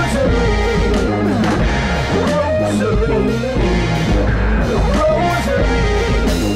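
Rock band playing a song, with drum kit, electric bass and keyboard, loud and steady with no words sung.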